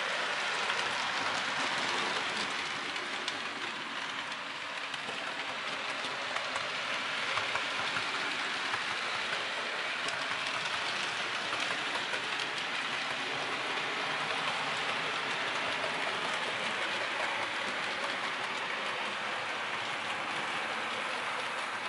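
Model railway train, a model of the BR B1 steam locomotive 61003 hauling its coaches along the layout track: a steady hiss and rumble of wheels and motor running, with occasional faint clicks.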